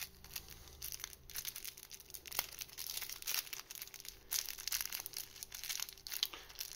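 Plastic wrapper of a trading-card promo crinkling and crackling as fingers work at it, trying to tear it open. The crackles come irregularly and densely throughout.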